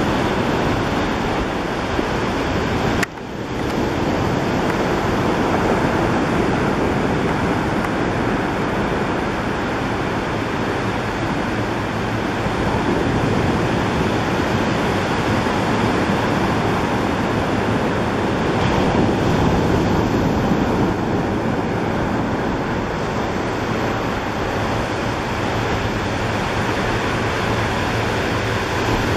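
Steady rushing wind noise on the microphone, broken off sharply about three seconds in.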